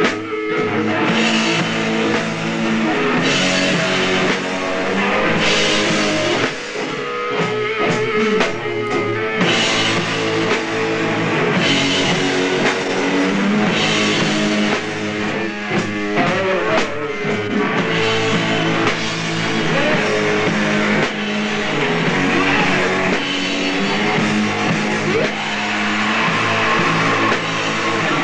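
Hardcore punk band playing live, loud and without a break: distorted electric guitar, bass and a drum kit.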